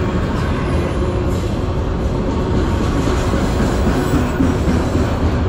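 A CN freight train's autorack cars rolling past close by, with a steady rumble of steel wheels on the rails.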